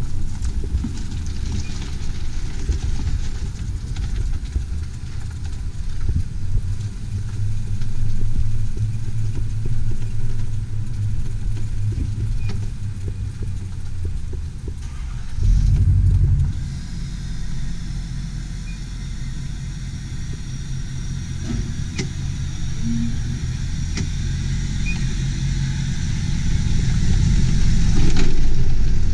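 Motor vehicle driving: steady engine and road rumble, growing heavier about halfway through.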